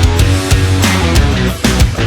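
Background rock music with distorted guitars and a driving drum beat.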